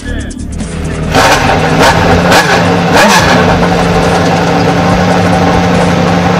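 Prototype race car's engine catching about a second in and blipped sharply a few times, then running at a steady, loud high idle.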